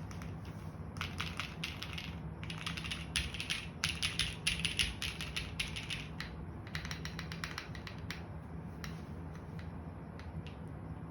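Typing on a gasket-mounted JJW Moment60 mechanical keyboard with lubed, Cherry-topped JWK Tungsten linear switches on a polypropylene plate and GMK keycaps: fast keystrokes in bursts, thinning to a few scattered presses in the last few seconds.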